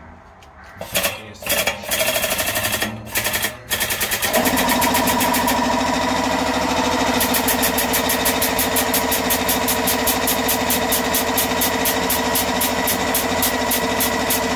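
Powered pump of a 20-ton hydraulic shop press, starting in a few short bursts, then running steadily with a rapid even pulsing as the ram squeezes a 1 kg silver bar.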